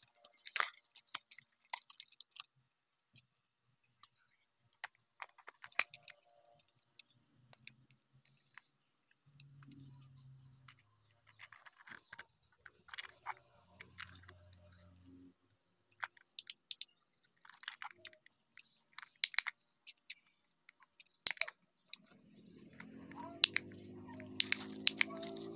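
Plastic packaging and a small stick-on LED touch lamp being handled: scattered clicks, crinkles and crackles of plastic. Near the end a low drone rises steadily in pitch.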